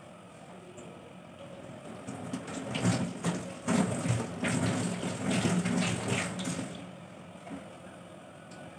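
Water splashing unevenly into a stainless steel kitchen sink as a wet dishcloth is rinsed and wrung out. It starts about two seconds in and dies away near the end.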